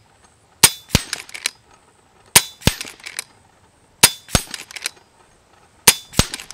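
An FX Impact X .25 regulated PCP air rifle with a DonnyFL Ronin moderator is fired four times in quick succession, about one shot every 1.7 seconds. Each sharp, suppressed crack is followed about a third of a second later by the pellet striking a hanging metal target at 50 yards, then a few lighter clicks as the action is cycled.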